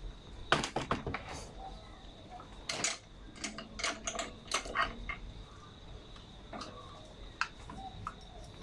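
Scattered clicks and light knocks of tools and small metal and plastic parts being handled while a lawnmower's throttle cable is removed. The clicks bunch up in the first half and thin out to a few single ones later.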